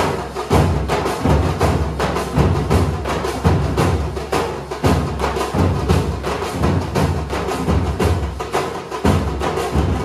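A troupe of drummers beating large cylindrical drums with sticks in a fast, driving rhythm: rapid sharp stick strokes over deep, repeated booming beats.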